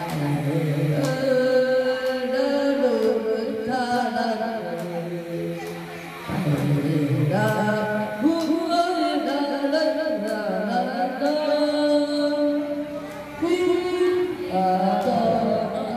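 A man singing a song into a handheld microphone, amplified, over backing music, in a melody of held notes stepping up and down with short breaths between phrases.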